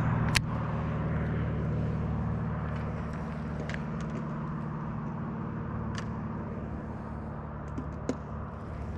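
Car engine idling: a steady low hum that slowly fades. A few sharp clicks come from the handling of a baitcasting reel, the loudest about half a second in and others near the end.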